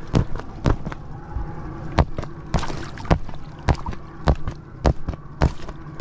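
A blade jabbed over and over into an inflatable vinyl swan float to puncture and deflate it: sharp stabbing knocks about two a second, with a brief hissing rush about halfway through.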